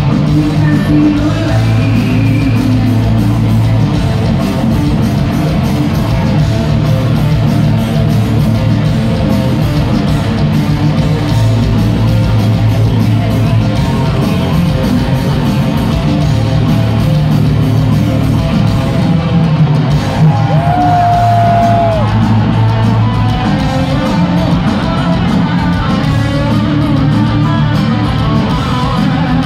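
Heavy metal band playing live: distorted electric guitars over bass and drums, heard from within the audience in a large hall. About twenty seconds in, a single note slides up, holds for a moment and drops away.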